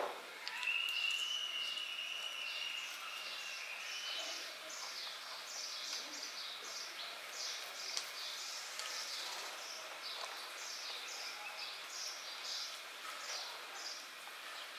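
A small animal chirping over and over, about two short, high, falling chirps a second, with a thin steady whistle during the first few seconds.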